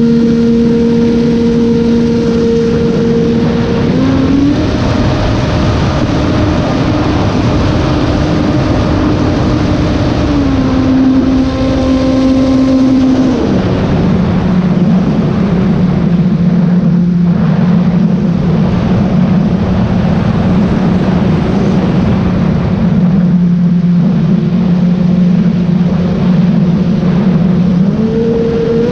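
Sky Surfer 3 RC plane's electric motor and propeller whining in flight, heard from a GoPro strapped to the plane, over a steady rush of wind. The pitch steps up a few seconds in, drops twice around ten and fourteen seconds in as the throttle is eased back, and climbs again near the end.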